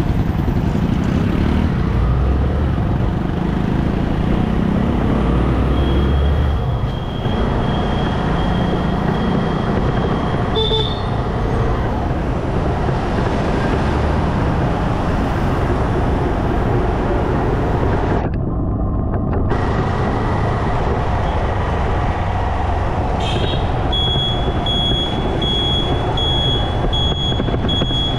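Riding a motorcycle through city traffic: a steady mix of engine and road noise with other vehicles around. A high-pitched tone holds for a few seconds in the first half, and near the end a high beep repeats steadily.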